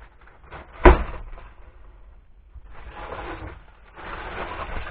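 A sharp knock about a second in, then crinkling rustle of a large plastic bag full of servos and wiring being set down and handled on the workbench.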